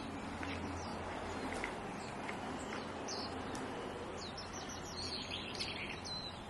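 Small birds chirping and calling over a steady outdoor background hiss, the calls busiest in the second half. Light, evenly paced footsteps on gravel tick faintly about twice a second early on.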